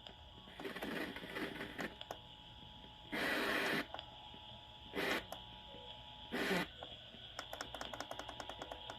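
Radio receiver putting out static: a steady faint hiss broken by several bursts of loud static, the loudest a little past three seconds in, then rapid crackling clicks near the end.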